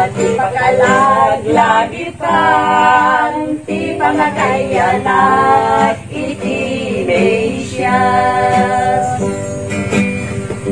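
A small group of women singing an Ilocano Christmas carol together to acoustic guitar accompaniment, with long held notes.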